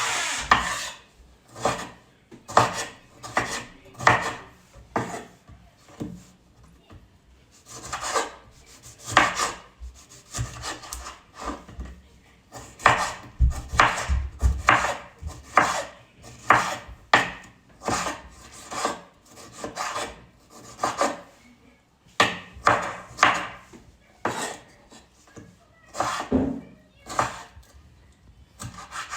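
Irregular strokes of a kitchen utensil scraping and knocking on a hard surface, about one or two a second, while food is prepared.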